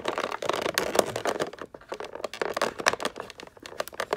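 Clear plastic blister tray crinkling and crackling in short, irregular clicks as hands twist and pull at a wire twist tie binding an action figure into it.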